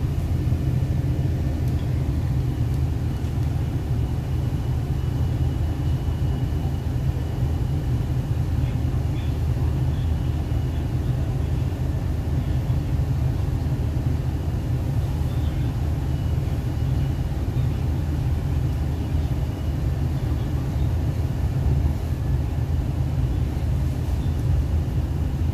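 Inside a moving MTR East Rail Line R-Train, the Hyundai Rotem electric multiple unit: the steady low rumble of the car running along the track at speed.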